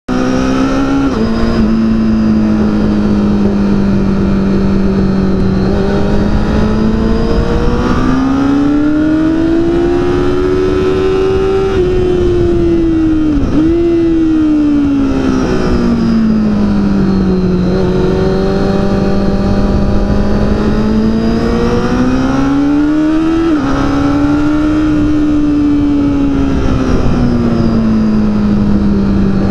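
Yamaha R6 sport bike's inline-four engine at track speed, heard from an onboard camera. Its note climbs and falls slowly with the throttle, with sudden drops at gear changes about a second in and about three-quarters through, and a brief sharp dip near the middle, over a constant noisy rush.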